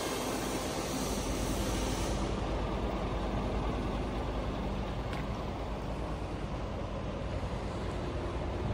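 Street-sweeper truck's diesel engine running steadily at idle, with a high hiss that fades out about two seconds in.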